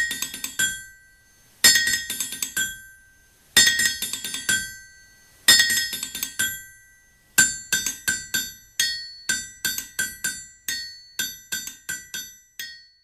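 Outro theme music played on ringing metal struck like hammer blows on an anvil. Four clusters of strikes come about two seconds apart, then from about seven seconds in a quicker, steady run of strikes.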